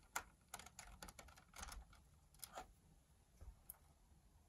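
Faint, irregular small clicks and taps of fingers working a small plastic wire connector on an opened projector's main circuit board, the sharpest about a quarter-second in.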